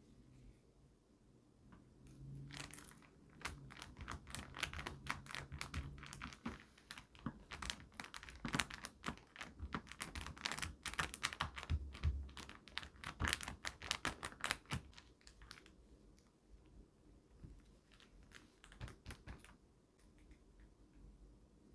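Rapid clicking and crinkling of thin plastic as a DIY candy kit's packets and trays are handled, busiest in the first two-thirds and thinning out near the end.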